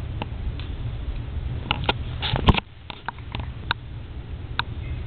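A cat sniffing at close range in short, uneven sniffs, over a steady low hum. One loud thump about two and a half seconds in.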